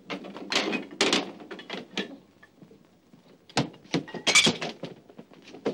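Knocks and clatter of toiletry bottles and household things being grabbed and set down, with a few sharp thunks about three and a half to four and a half seconds in.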